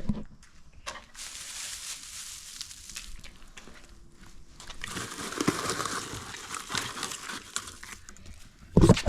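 Crinkling and rustling as debris is packed into the homemade flour-bomb container around the firework shell, with scattered small clicks. A louder knock comes just before the end.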